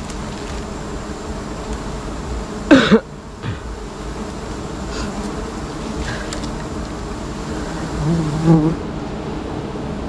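A swarm of disturbed wild honeybees buzzing steadily around a freshly cut nest. About three seconds in, one brief loud sound slides sharply down in pitch.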